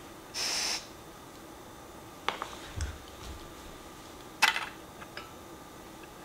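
A short hiss of gas from a canister backpacking stove whose valve is opened briefly without lighting, followed by a few light clicks and knocks of small gear being handled and set down on a wooden board, the loudest about four and a half seconds in.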